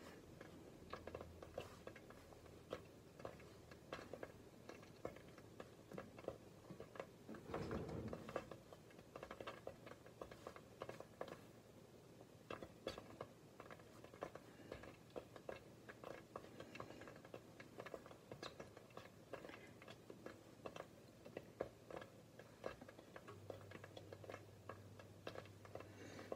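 Near silence broken by faint, irregular little clicks and taps: cubes of gorgonzola being picked by hand off a cutting board and set down on a plate of polenta.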